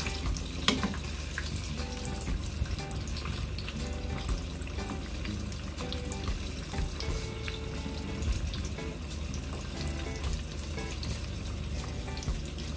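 Oil sizzling and crackling in a pan as panko-breaded eggplant and zucchini slices fry: a steady hiss full of small pops.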